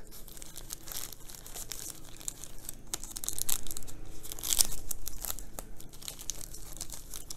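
Thin plastic bag crinkling and rustling in the hands as it is pulled off a small plant's soil ball. It comes in irregular crackles, loudest about halfway through.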